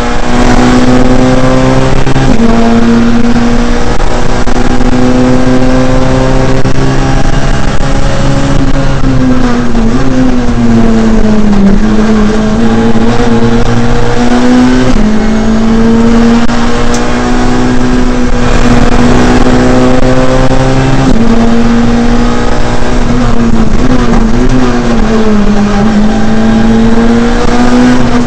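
Ford Fiesta R2 rally car's 1.6-litre four-cylinder engine, heard from inside the cabin, driven hard high in its rev range. There are quick breaks at gear changes and, about a third of the way in and again near the end, slower dips where the revs fall and climb back up, over steady road and tyre noise.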